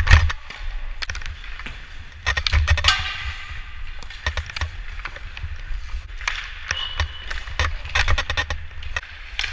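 Hockey skates scraping and carving on rink ice while a stick clicks against pucks and the ice, with many sharp clicks throughout and a longer skate scrape a little over two seconds in. A brief high squeal about two-thirds of the way in, and a low rumble of movement on the body-worn camera.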